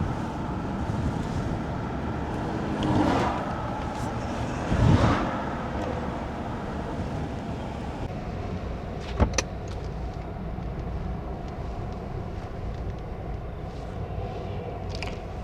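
A car driving along, with steady low road and engine noise. Two louder whooshing swells come about 3 and 5 seconds in, and there is a sharp click about 9 seconds in.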